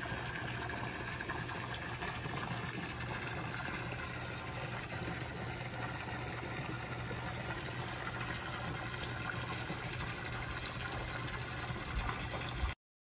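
Steady rushing water noise of a swimming pool heard through a submerged or splashed phone microphone, with a faint low hum under it. It cuts off suddenly near the end.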